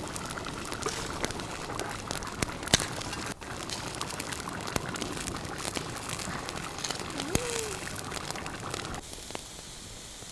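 Wood campfire crackling, with many sharp pops and snaps over a steady hiss, under a hanging cooking pot. About nine seconds in it gives way to a quieter, steadier background.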